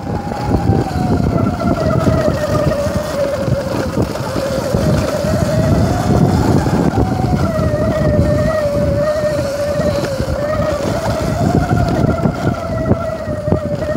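Bicycle riding fast over a rough dirt trail: tyres on dirt, rattling and wind noise on the microphone, with a steady whine that drifts slowly up and down in pitch as the speed changes.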